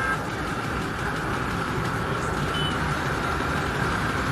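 Hero Glamour BS6 motorcycle cruising at a steady speed: its single-cylinder engine under a steady rush of wind and road noise.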